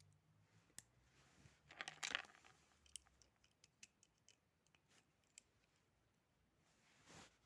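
Near silence broken by scattered faint clicks, a short scratchy rustle about two seconds in, and another brief rustle near the end.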